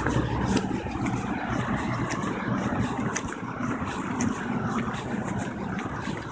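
Car engine and road noise heard from inside the cabin as the car drives off: a steady low hum under a wash of noise.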